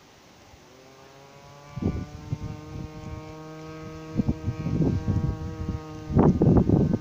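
A kite's hummer buzzing in the wind: a steady pitched hum that comes in about a second in, rises a little, then holds. Wind buffets the microphone, heaviest near the end.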